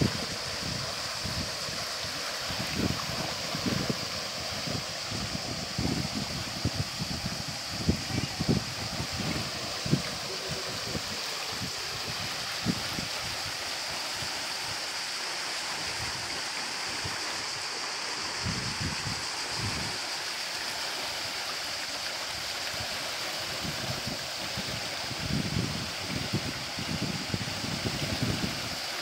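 River rushing over rocks through small rapids: a steady hissing wash of water. Irregular low rumbling gusts come and go, most in the first ten seconds and again near the end.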